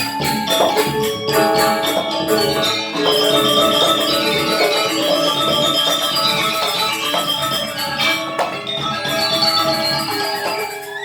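Balinese gamelan gong kebyar playing, with bronze metallophones and gongs ringing together in many sustained tones. The music drops a little in loudness near the end.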